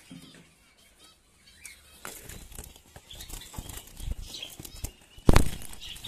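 Caged zebra finches fluttering, with faint high chirps and scattered rustles. A single sharp, loud bump comes about five seconds in.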